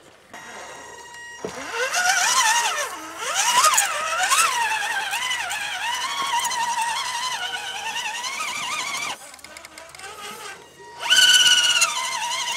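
Electric drive of a scale RC crawler truck whining under throttle, its pitch rising and falling as the driver works the throttle on a climb. After a brief dip near the end it holds a steadier, higher whine.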